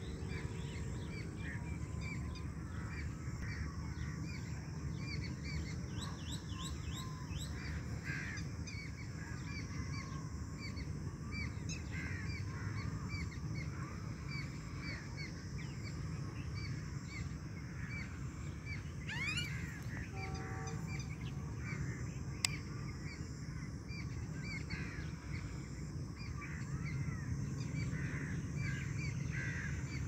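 Many birds chirping and calling over a steady low rumble, with a single sharp click about three-quarters of the way through.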